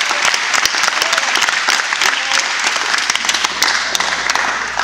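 Audience applauding, with dense clapping from many hands.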